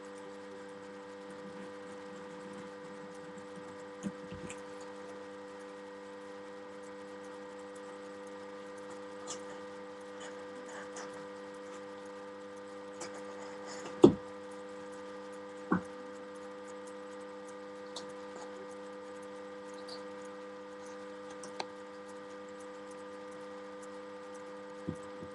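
Steady electrical hum made of several fixed tones, with scattered clicks and knocks from hand work at a table. The sharpest knock comes just past halfway, and a second one follows soon after.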